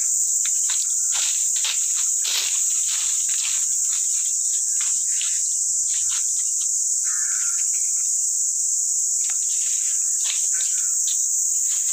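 Steady high-pitched drone of insects in the orchard trees. Over it come bursts of crackling rustles from footsteps on dry leaf litter, in the first few seconds and again near the end.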